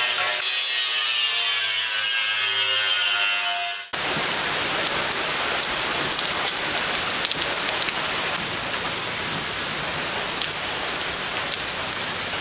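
An angle grinder whines as it grinds the steel lid of a 55-gallon drum. About four seconds in it cuts off abruptly, giving way to steady rain pattering on pavement.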